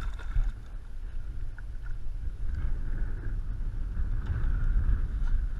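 Wind rumbling on the microphone over water sloshing against a kayak's hull, with no clear single event.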